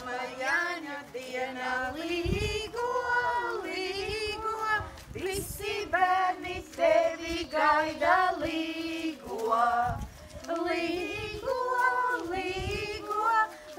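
Women and children singing a Latvian līgo midsummer song together, unaccompanied, with long held notes.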